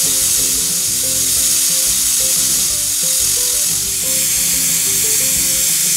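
Aluminium stovetop pressure cooker whistling: steam blasting out of the weight valve in a loud, steady hiss, the sign that the cooker is at full pressure. It cuts off suddenly near the end.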